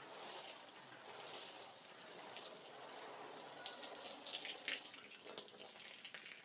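Water from a hose spray head falling onto a soaked, soapy rug: a steady hiss of spray on the pile, breaking up into separate splashes and drips in the last couple of seconds.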